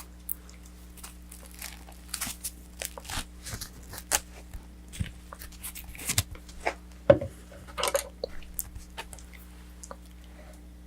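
Close-miked crinkling and tearing of takeout food packaging, a run of irregular sharp crackles with one loud snap about seven seconds in, over a steady low hum.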